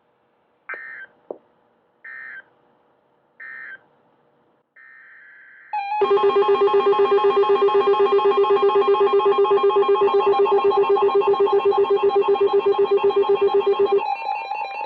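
Emergency Alert System start-of-message sequence: three short electronic data bursts about a second apart, then from about six seconds in a loud, rapidly pulsing steady alert tone, which changes to a different single tone near the end.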